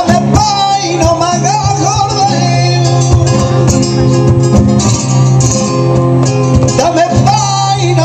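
Two acoustic flamenco guitars strumming a bulerías rhythm while a man sings over them in flamenco style, his line wavering and ornamented. A steady low hum runs underneath.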